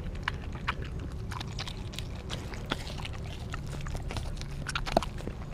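Australian Kelpie chewing a raw turkey back close to the microphone: irregular wet crunching and clicking chews, with a sharper, louder crack about five seconds in.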